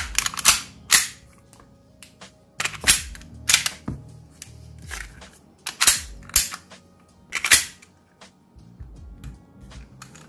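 A series of sharp plastic-and-metal clacks from a Double Bell G19 gel-blaster pistol as it is handled and put back together, its slide and parts snapping into place. The clacks come in small groups, about eight in all.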